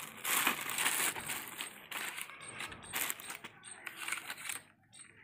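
A plastic packet rustling as a Yunteng YT-1288 Bluetooth selfie stick is pulled out of it, loudest in the first second, then scattered clicks and rattles as the stick is handled.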